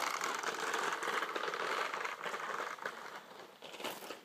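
Child's toy push mower rattling with a rapid, dense clicking as it is pushed over a gravel driveway, growing fainter toward the end.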